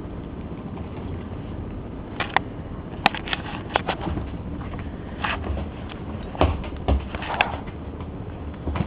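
Kittens playing, making scattered sharp knocks and clicks over a steady low hum; the knocks start about two seconds in and come irregularly.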